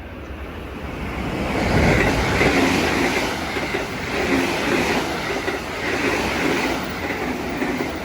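Train running over jointed rail, its wheels clacking over the rail joints, the sound building over the first two seconds as it draws near and then staying loud.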